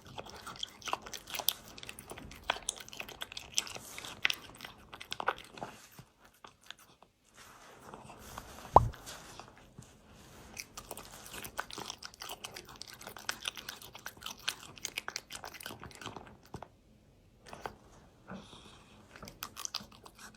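A cat crunching and chewing food in quick, repeated bites, with a couple of short pauses. About nine seconds in there is one brief, sharp sound, the loudest in the stretch.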